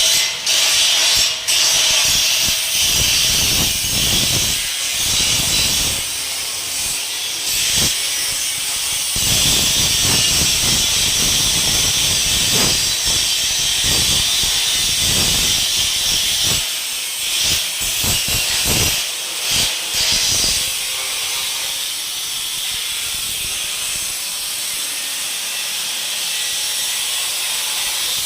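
Electric arc welding: the arc hissing steadily and loudly, with short uneven low pulses underneath, and the hiss easing somewhat in the second half.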